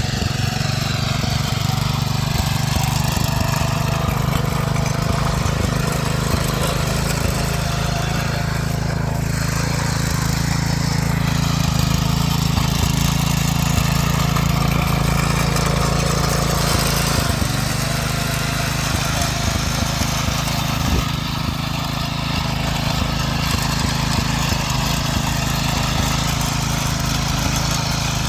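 Small petrol engine of a walk-behind motor hoe running steadily while cultivating soil with a three-tine goose-foot attachment, its pitch dipping slightly a few times under load.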